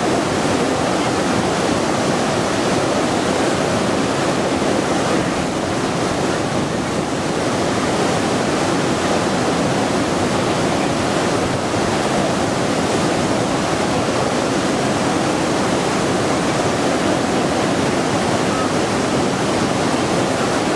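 Lower Bassi Falls pouring steadily: an even, continuous rush of falling water, strongest in the low-to-mid range.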